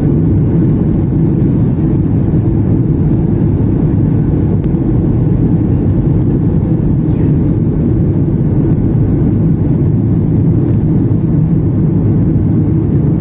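Boeing 737 airliner cabin noise on final approach: a loud, steady low rumble of the engines and the air rushing past the fuselage and wing, heard from inside the cabin.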